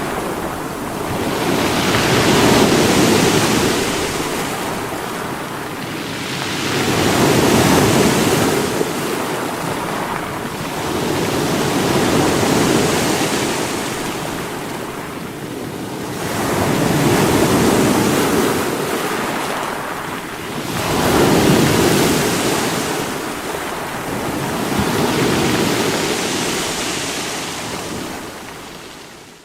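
Sea waves breaking on rocks, surging and washing back in a slow rhythm, one swell about every five seconds.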